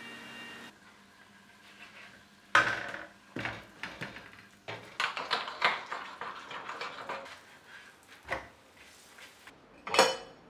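Kitchen utensil sounds: irregular clatters and scrapes of spoons against bowls and pans, the loudest about two and a half seconds in and again near the end. A steady tone cuts off early in the first second.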